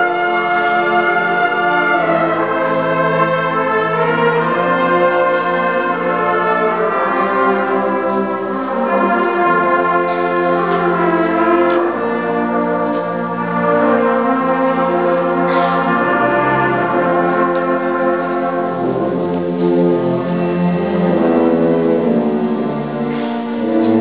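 Large school concert band playing a full passage: woodwinds and brass sustain chords over low timpani and percussion, with the brass most prominent.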